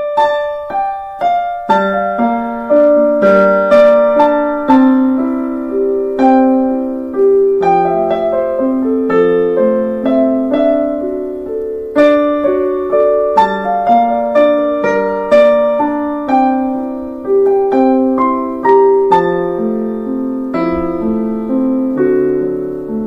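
Background piano music: a gentle melody of struck notes, each ringing and fading, played continuously.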